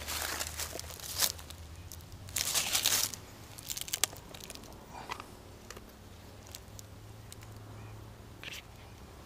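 Rustling and crinkling handling noises as a plastic tub is opened and its contents scooped, in a few short bursts, the loudest about two and a half seconds in.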